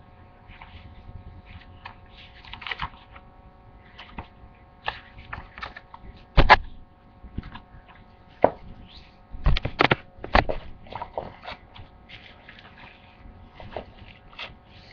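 Irregular taps, clicks and rustles of things being handled, with a few sharp, louder knocks about six and a half, nine and a half and ten and a half seconds in, over a faint steady hum.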